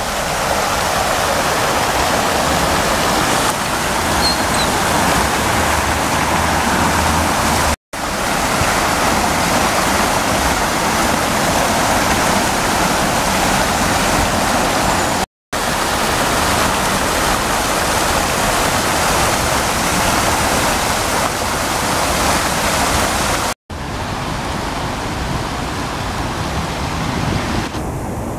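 Fountain jets splashing into their basin: a steady rush of falling water. The sound cuts out briefly three times, and turns duller near the end.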